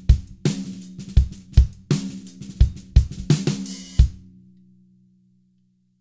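A drum kit groove played on a Dunnett 14x6 snare drum tuned low, a quarter turn past finger tight, with bass drum and cymbal strokes between the snare hits. The playing stops about four seconds in, leaving the snare's low ring to fade away.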